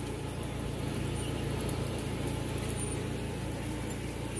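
Mail delivery truck's engine running at idle: a steady low rumble that grows a little louder in the middle.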